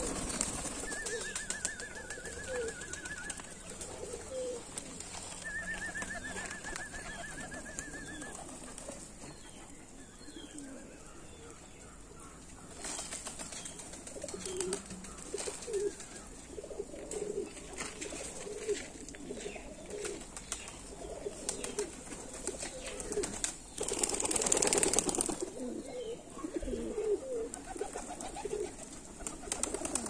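Domestic pigeons cooing, with many short low calls overlapping as a flock feeds on grain. A brief loud rush of noise about 24 seconds in stands out above the calls.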